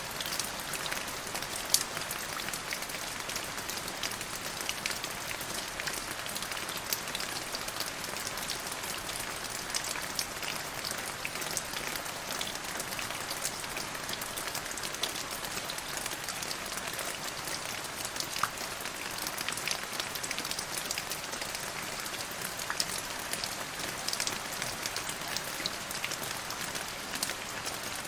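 Steady rain falling, with many individual drops ticking sharply over an even hiss.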